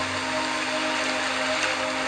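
Ocean surf washing on a beach as an even, steady wash of noise, under soft ambient music with long held notes.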